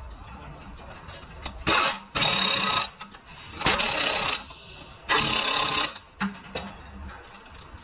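Pneumatic impact wrench hammering on a bolt at the bottom of a front steering knuckle, run in four short bursts of about half a second to a second each.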